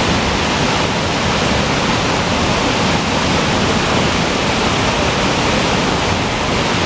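Waterfall rushing: a loud, steady roar of falling water with no break.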